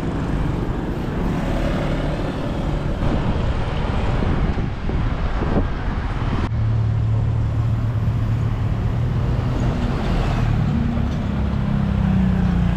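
Street traffic: engines of passing motor vehicles. A steady low engine hum sets in about six seconds in and shifts to a higher steady tone near the end.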